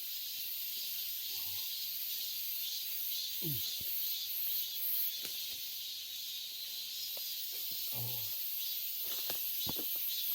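Steady, high-pitched droning chorus of summer insects, with a man's short falling groans twice, about a third of the way in and again later.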